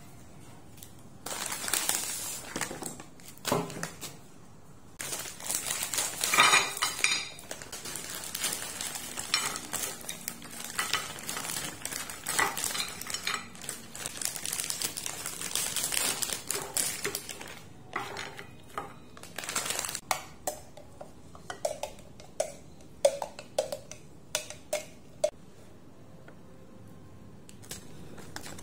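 Kitchen food preparation with dishes and utensils being handled. First comes a long stretch of noisy scraping and rustling, then a series of sharp clinks in the second half.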